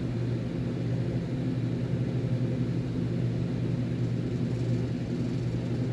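Steady low machine hum: an unchanging drone made of several low tones.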